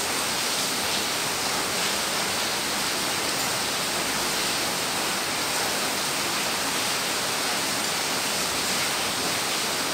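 Steady, even hiss of background noise that does not change, with no distinct events.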